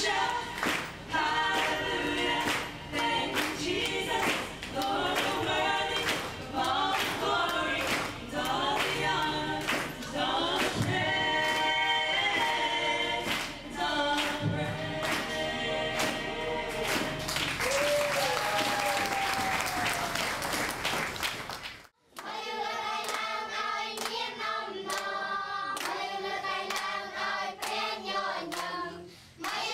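A group singing a worship song, with hand claps keeping a steady beat. About 22 s in, the sound cuts off abruptly, and a different recording of many children singing together begins.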